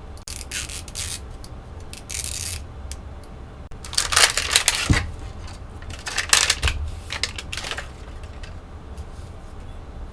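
Plastic packaging of an L.O.L. Surprise! doll ball crinkling and tearing as it is handled and opened, in several bursts, the loudest about four seconds in.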